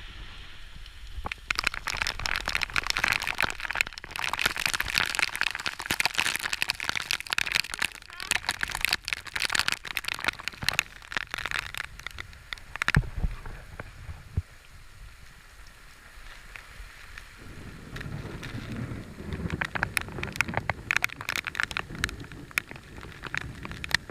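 Heavy rain pattering in dense, irregular drops, loudest in the first half. A low rumble comes in for the last few seconds.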